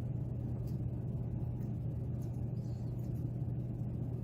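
Steady low hum with a rumble beneath it, with a few faint light ticks.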